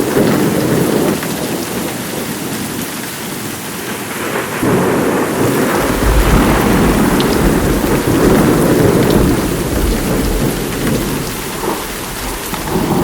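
Thunderstorm: heavy rain falling hard with rolling thunder, a deep rumble setting in about six seconds in and swelling and easing after.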